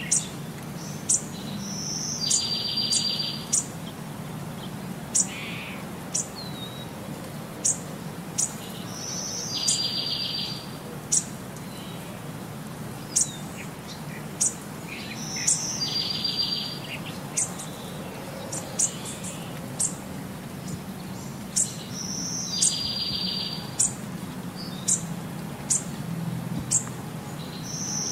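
Birdsong: short high chirps about once a second, and a rapid trilled call lasting about a second that comes back about every six and a half seconds in the same form, over a faint low steady hum.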